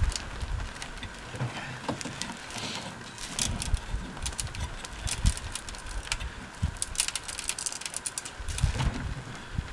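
Irregular clicks and light metal rattling from a clothes wringer's T-handle clamp screws as they are turned by hand, tightening the wringer onto a table edge, with low scattered thumps.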